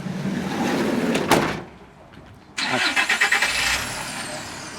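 A sharp thump, then about two and a half seconds in a vehicle engine starts with a sudden loud burst and settles into a steady run.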